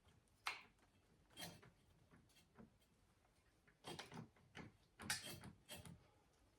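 Scattered light clicks and knocks of hand tools and metal parts while the chain grinder is tightened down onto its stand, with a quick cluster of them about four to six seconds in.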